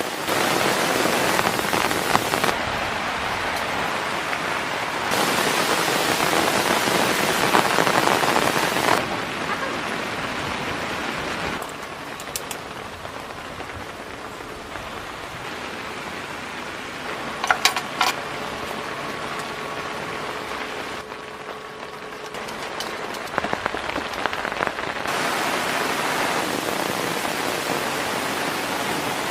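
Steady rain falling, its hiss stepping abruptly louder and softer every few seconds, with a few sharp clicks about two-thirds of the way through.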